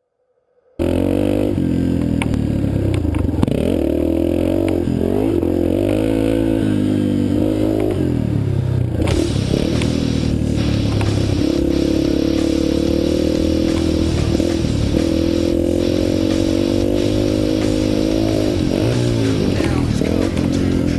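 Yamaha TT-R230 trail bike's single-cylinder four-stroke engine revving up and down repeatedly as it is ridden, starting abruptly just under a second in.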